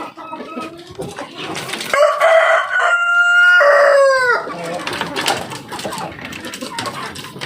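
A rooster crowing once, about two seconds in: a long call of about two and a half seconds that holds its pitch and then falls away at the end. Hens cluck and clicks scatter around it.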